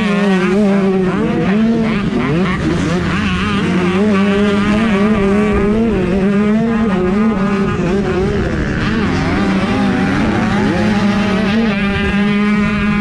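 Several 125cc two-stroke motocross bikes running together, their engine notes rising and falling and overlapping as the riders work the throttles, under a steady drone.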